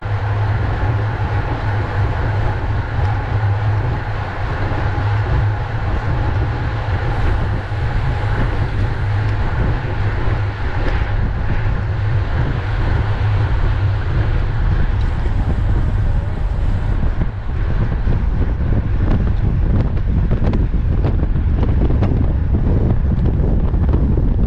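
Wind buffeting a bicycle-mounted camera's microphone at racing speed, a loud, steady rush over a continuous low rumble.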